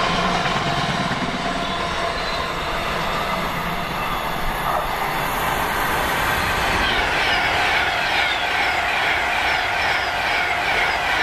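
The last container wagons of a freight train rolling past and fading. Then, from about seven seconds in, an Avanti West Coast passenger train passes at speed, its wheels clattering rhythmically, two or three beats a second.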